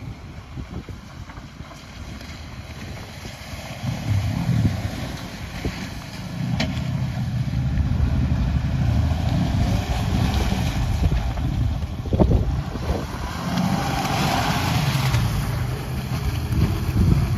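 Ram heavy-duty pickup's engine pulling under load as the truck drives through mud and up a slope, growing louder about four seconds in, with its tyres churning through mud and wind buffeting the microphone.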